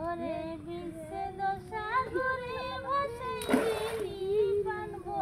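A high singing voice holding long, gliding notes, with a short burst of noise about three and a half seconds in.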